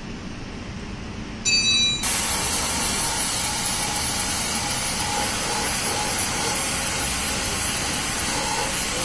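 A brief high whistle about a second and a half in, then a loud, steady hiss of rushing air that carries on past the end.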